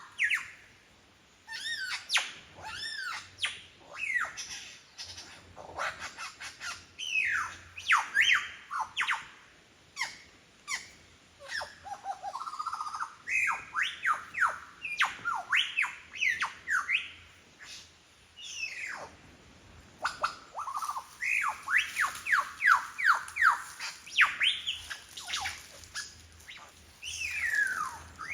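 Superb lyrebird singing a mimicry medley: a fast, near-continuous string of varied calls, mostly sharp downward-sweeping whistles, with quick runs of repeated notes and clicks.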